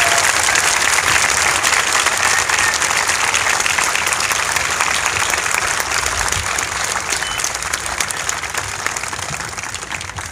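Crowd applauding steadily, tapering off near the end.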